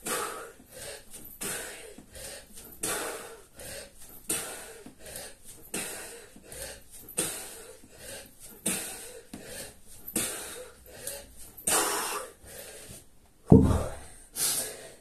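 A man's hard, forceful exhales, one with each kettlebell swing, about every second and a half. Near the end there is a heavy thud as the 53 lb kettlebell is set down on the rubber floor mat.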